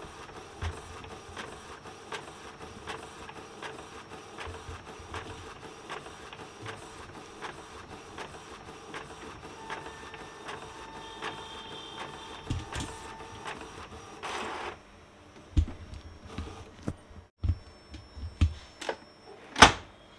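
Epson L361 inkjet printer printing a page: the print-head carriage and paper feed run with a steady, regularly ticking mechanical noise. The printing stops suddenly about 14 to 15 seconds in. Several sharp clicks and knocks follow near the end.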